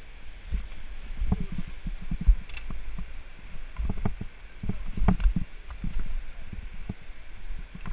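Mountain bike rattling down a rocky trail: irregular knocks and clatters as the wheels and frame hit rocks and roots, over low wind buffeting on the camera microphone.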